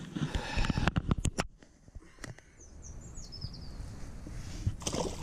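Sharp knocks and rustles from handling a freshly landed pike on the bank in the first second and a half, then a small bird gives a quick run of high, falling chirps a little before midway.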